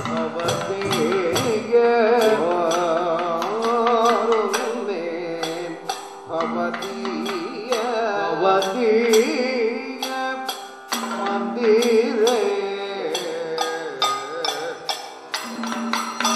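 Live Kathakali music: a male vocalist sings a padam in a melody with wavering ornaments over a held drone. Stick-beaten chenda drum and small cymbals keep a steady, dense beat.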